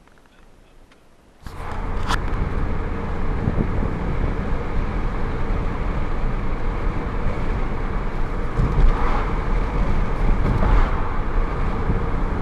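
Outboard motor of a 19-foot Carolina skiff running steadily with the boat under way, a strong low hum with a faint steady tone above it. It comes in abruptly about a second and a half in, after a quiet start.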